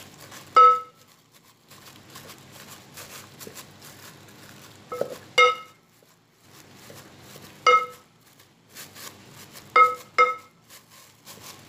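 Cooked glutinous rice being pounded in a rice cooker's inner pot, the pounder knocking the pot about six times at uneven intervals, each knock a short ringing clank.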